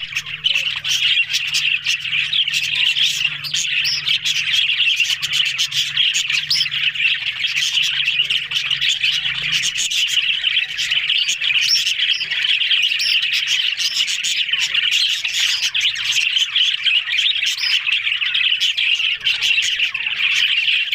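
Budgerigars chattering and warbling continuously, a dense stream of chirps and squawks.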